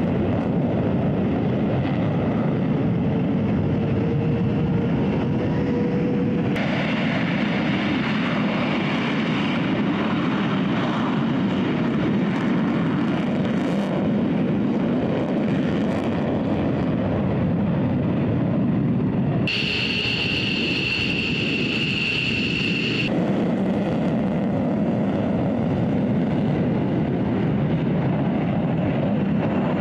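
Fighter jets' turbofan engines at full takeoff power, a single-engine F-35A and then an F-15 with afterburners lit, heard as loud, steady jet noise on their takeoff rolls. The sound changes abruptly about six and a half seconds in and again around twenty seconds in, where a high turbine whine stands out for about three seconds.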